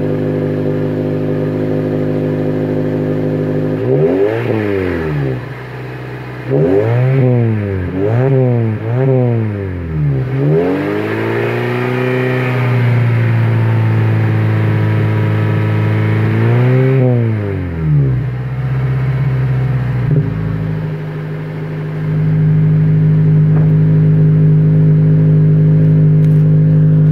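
Honda Element's 2.4-litre four-cylinder engine heard at the tailpipe of an Injen cat-back exhaust: idling steadily, then revved, first in a burst about four seconds in, then in several quick blips, then in a longer rev held for a few seconds, with one more blip before it settles back to a steady idle.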